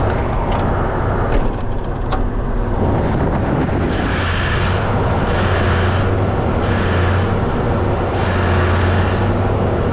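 Combine harvester's engine running steadily with a deep hum. A few sharp clicks come in the first two seconds, and several short rushes of hiss come and go later on.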